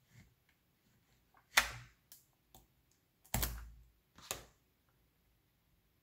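Small neodymium magnet balls clicking and clacking against one another as a plastic card is worked between two magnetic-ball sections: three sharp clacks, the loudest about a second and a half in, with a few fainter ticks between.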